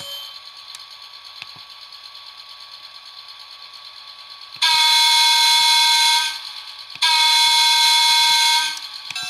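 Model MTA subway train's sound decoder (Soundtraxx Tsunami) playing two long horn blasts through its small onboard speaker, each about a second and a half, separated by a short gap about two-thirds of the way in. Beneath them is the decoder's steady running sound.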